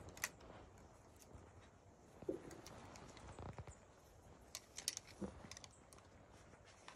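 Quiet background with a bird calling faintly: two short low notes, one a little over two seconds in and one about five seconds in. Scattered light clicks and taps run among them.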